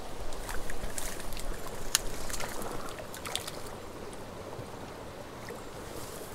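A hooked brook trout splashing at the surface of a small pond as it is played on a line: a run of small, sharp splashes in the first three seconds or so, then quieter water.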